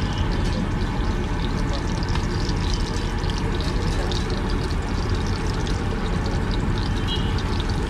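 Eggs frying in oil on a large flat griddle: a steady sizzle with scattered small crackles, over a constant low rumble.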